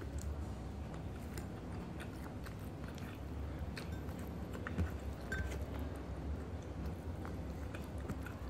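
A person chewing and biting food eaten by hand, with many small scattered wet clicks and smacks, the sharpest about five seconds in, over a steady low hum.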